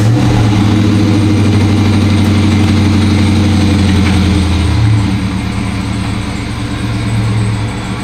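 Ford Mustang GT's V8 engine idling steadily, its low note shifting slightly about five seconds in.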